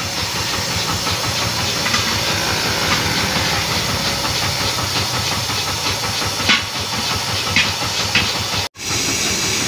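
An engine running steadily under a constant hiss, with a few short sharp knocks from about six and a half seconds in as a truck tyre's rim ring is handled. The sound cuts out for an instant near the end.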